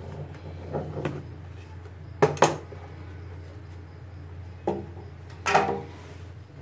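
Knocks and clatter of a metal loaf tin being turned over and set down on a hard counter to turn out a baked cake, the loudest a sharp double knock about two and a half seconds in, with lighter knocks before and after.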